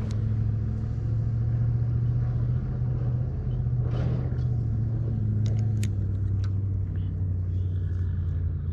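A motor idling steadily with a low, even hum, with a few faint clicks over it in the middle.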